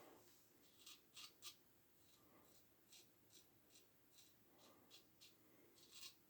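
Faint, short scraping strokes of a single-edge Ever Ready safety razor cutting through lathered stubble, a dozen or so irregular strokes.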